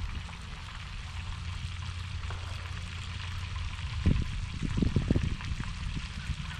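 Steady rushing hiss of flowing water, with a cluster of short low bumps about four to five seconds in.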